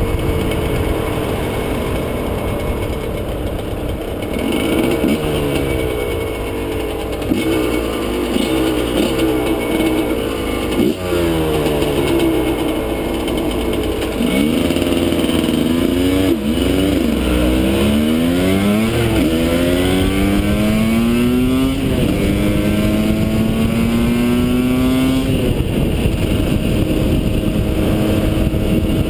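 Husqvarna SM 125 two-stroke motorcycle engine with a Jollymoto expansion-chamber exhaust under way. It revs up and drops in pitch at each gear change, with several quick upshifts in a row about halfway through, then runs at a higher, steadier pitch near the end.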